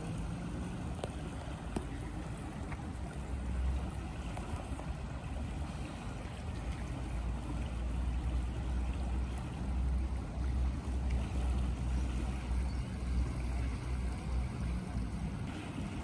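Steady rush of water pouring over a weir, under a low, uneven wind rumble on the microphone that grows stronger a few seconds in.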